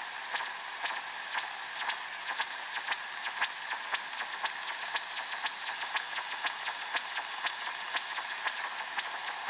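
Shortwave radio reception on an Eton E5 receiver in the 25-metre band: an odd pulsing signal, regular sharp clicks a few times a second, over a steady band of static hiss.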